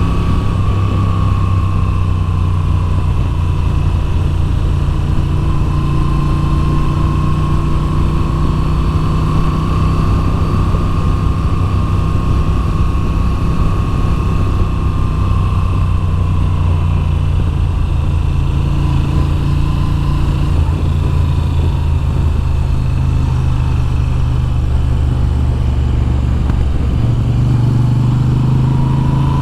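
2022 Moto Guzzi V7's air-cooled transverse V-twin under way, engine speed rising and falling gently through the bends and picking up again near the end.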